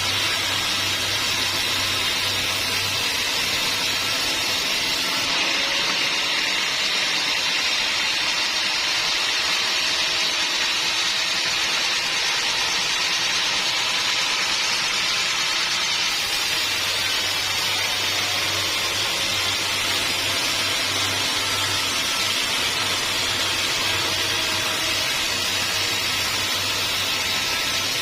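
Sawmill saw running steadily through a log, a continuous hissing blade-cutting noise with a low hum underneath that drops out for about ten seconds early on and then returns.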